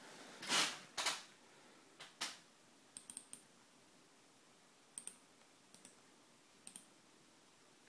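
A USB flash drive being pushed back into a computer's port: a brief scrape and a sharp click about a second in. It is followed by a run of computer mouse clicks, mostly quick double-clicks, while opening folders in Windows.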